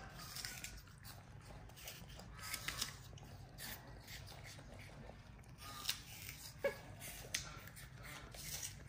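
Baby monkey eating apple: scattered small crunches and clicks of biting and chewing, with a short falling squeak about two-thirds of the way through.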